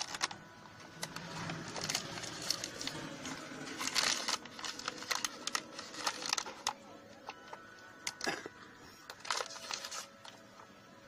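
Irregular crinkling and rustling with scattered sharp clicks, like material being handled up close.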